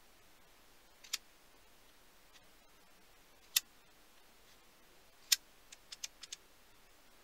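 Homemade steel spindle start/stop lever mechanism worked by hand, its lever moving in the housing with sharp metallic clicks: three single clicks about two seconds apart, then a quick run of five lighter ticks.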